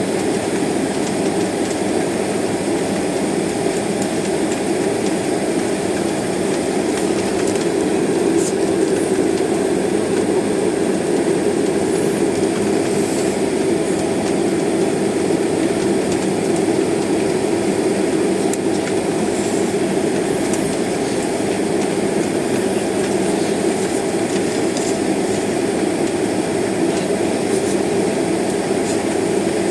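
Airliner cabin noise while taxiing: the jet engines running at low thrust and the wheels rolling over the taxiway, a steady low rumble with faint light rattles.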